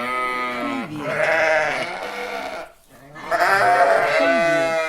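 A sheep bleating twice: two long, wavering bleats, the second starting about three seconds in.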